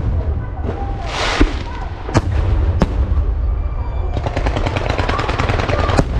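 Aerial fireworks shells bursting overhead. Several sharp bangs come in the first half, then from about four seconds in a dense, rapid crackling rattle of many small reports.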